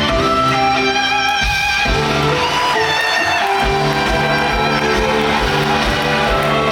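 Instrumental curtain-call music from a musical, with sustained notes over a steady low beat; the beat drops out for about two seconds in the middle, then returns.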